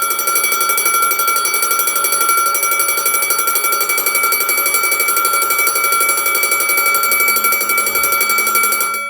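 Scantronic Eurobell burglar-alarm bell ringing continuously with a fast metallic flutter, then cutting off suddenly at the very end.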